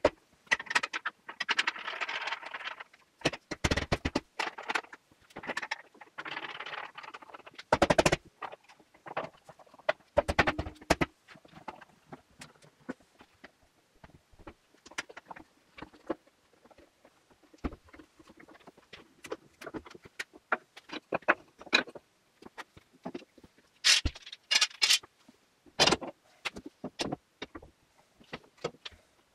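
Spruce boards and clamps being handled at a clamping rack: a string of separate wooden knocks, clicks and scrapes, with a few louder knocks.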